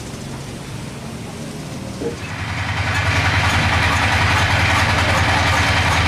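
An engine running low, then about two seconds in a thump, after which it runs louder with a fast, even pulse and a hiss.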